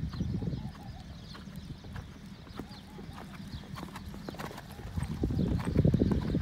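Hoofbeats of a horse cantering on a sand arena, a repeated muffled thudding that grows louder about five seconds in as the horse passes close by.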